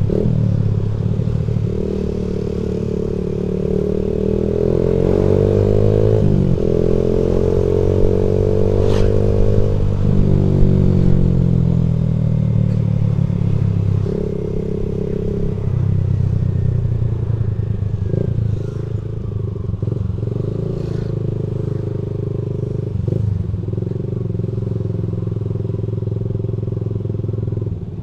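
Motorcycle engine running under way, its pitch climbing and dropping a couple of times in the first ten seconds or so as it accelerates and shifts gears, then holding fairly steady with brief dips, plus a few sharp clicks.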